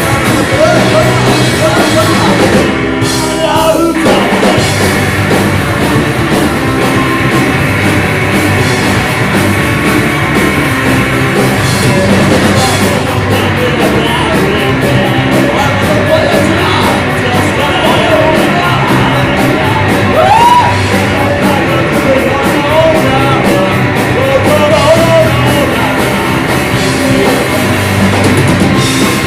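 Live rock band playing a loud song with a singer, with a brief break in the cymbals and high end about three seconds in before the full band carries on.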